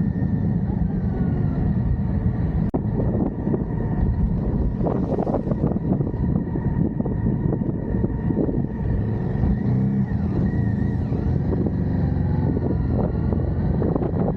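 Motorcycle engine running at a steady speed on the move, with patches of rushing noise about five seconds in and near the end.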